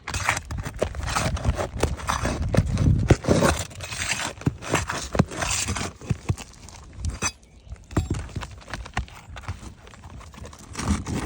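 Irregular knocks, taps and scraping of hand tools working asphalt roof shingles loose, as a damaged shingle is removed. Busiest in the first six seconds, then sparser taps.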